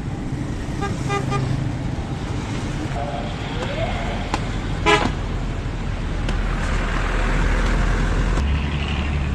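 Street traffic running past, with a short vehicle horn toot about halfway through.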